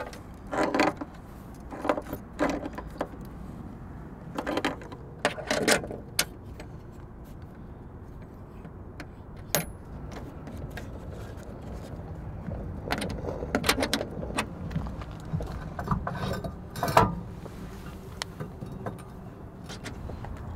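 Scattered metallic clinks and rattles of a plier wrench and a metal quick-disconnect water fitting being tightened and handled, in short irregular bursts over a low steady background.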